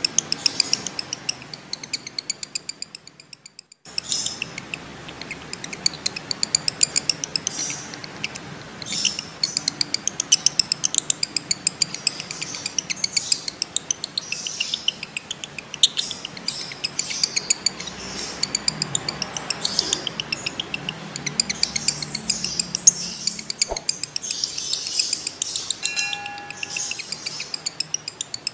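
Male lovebird in breeding condition giving its long chattering trill ("ngekek"): fast runs of high, evenly repeated chirps. These break off briefly about three seconds in, then carry on. A brief steady tone sounds near the end.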